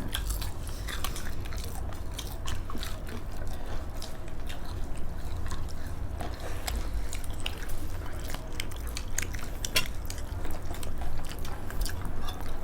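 Close-up eating sounds: wet chewing and mouth sounds, with scattered small clicks and taps of plates and utensils, over a steady low hum.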